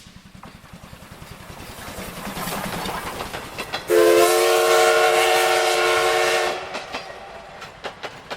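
Plarail toy train running on plastic track with a rapid rattle that grows louder, then a steady train whistle for about two and a half seconds that starts and stops suddenly, followed by clicks as the rattle fades.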